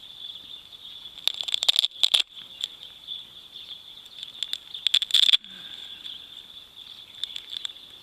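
A leather belt pouch being opened by hand and its packed contents shifted, heard as two bursts of crackling rustles and clicks, the first about a second and a half in, the second about five seconds in. Insects drone steadily at a high pitch behind it.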